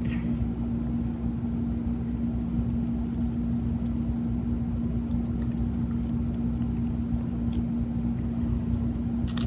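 A steady low hum with one constant tone and a rumble beneath it, unchanging throughout; a few faint soft clicks of handling, one just before the end.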